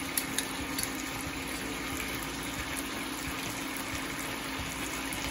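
Oil and mutton pieces sizzling and bubbling steadily in a pot, with a couple of light clicks near the start.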